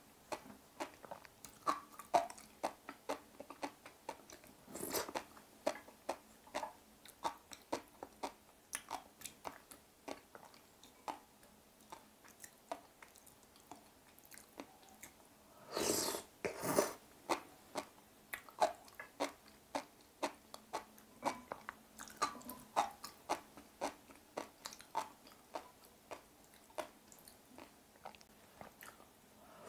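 Chewing sea grapes (Caulerpa seaweed) dipped in a creamy sauce: a steady, irregular run of small, sharp crunching clicks. There are a couple of louder noisy bursts, one about five seconds in and another just past the middle.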